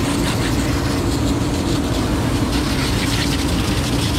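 Water hose spraying down the arm of a robotic milking machine: a steady hiss of spray over a constant low machine hum.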